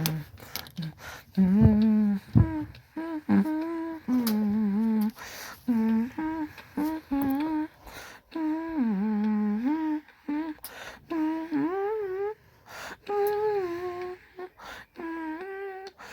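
A person humming a wordless tune in a small room: held notes that slide and bend in pitch, with short breaks between them. A couple of sharp knocks sound near the start.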